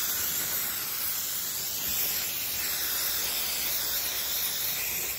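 Aerosol can of blue antiseptic wound spray hissing in one long continuous burst onto a heifer's bite wounds, cutting off abruptly at the end.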